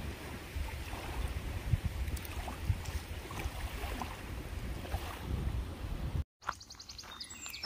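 Wind buffeting the microphone, a heavy rumbling noise with a few faint knocks. About six seconds in it cuts to silence for a moment, then comes back quieter with light clicks.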